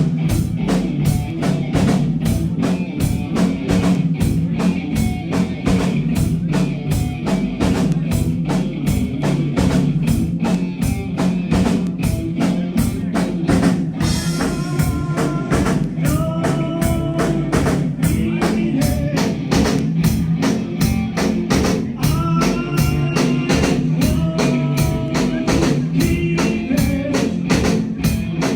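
Live rock band playing loudly: a drum kit beats steadily under guitar and bass, and a higher melody line comes in about halfway through.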